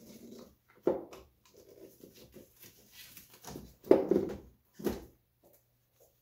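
Handling noises in a car's engine bay: scattered knocks, clunks and rubbing as gloved hands work an A/C manifold gauge hose and its quick coupler onto a service port. The loudest clunks come about a second in and about four seconds in.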